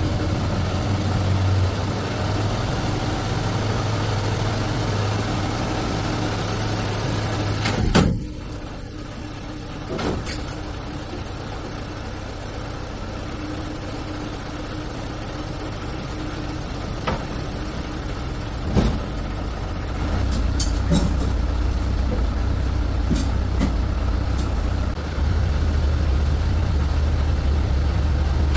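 A heavy vehicle's engine idling steadily, with a few sharp clicks and knocks over it. The hum drops a little about eight seconds in and comes back up around twenty seconds.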